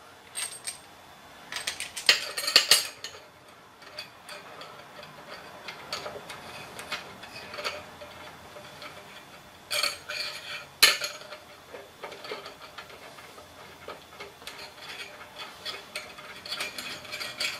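Metal parts being handled and fitted on a milling machine table: scattered light clinks and taps of an aluminum casting and steel jig pieces, with louder clattering knocks about two seconds in and again around ten to eleven seconds.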